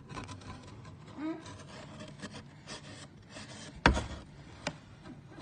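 Cats' paws scratching and rubbing against a cardboard box, with scattered scrapes and a sharp knock about four seconds in.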